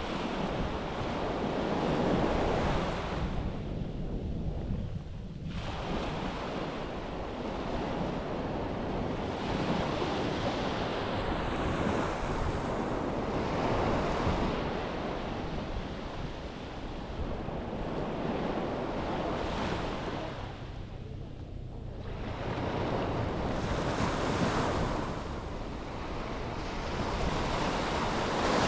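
Sea waves breaking on a beach, the surf swelling and washing back every few seconds, with wind buffeting the microphone as a steady low rumble.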